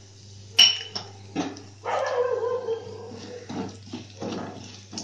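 A dog whining in the background, one held pitched cry lasting about a second. Under it are sharp clinks and scrapes of cooking in a metal kadai where mustard seeds, urad dal and cumin are frying in oil, the loudest a ringing clink early on.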